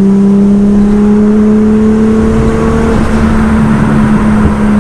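Twin-turbo RB26DETT straight-six of an R33 Skyline GT-R accelerating past about 4,000 rpm, its pitch slowly rising for about three seconds, then the throttle is let off and the engine runs on the overrun with light exhaust crackles from a freshly mapped pop-and-bang setting.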